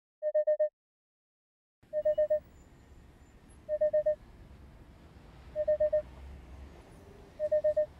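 Digital alarm clock beeping its wake-up alarm: groups of four quick beeps, repeated about every two seconds. A faint low hum of room sound sits under the beeps from about two seconds in.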